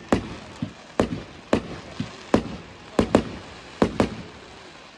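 Aerial fireworks display: a quick, irregular string of about ten bangs from bursting shells, some in close pairs, with a hiss between them; the bangs stop just before the end.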